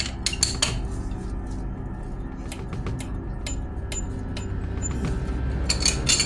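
Metal hand tools clinking and clicking irregularly while working on a car wheel during a tyre change, over a steady low hum.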